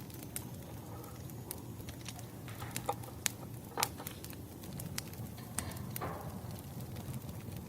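Burning firewood crackling, with frequent sharp, irregular pops and snaps over a low steady rumble of the fire.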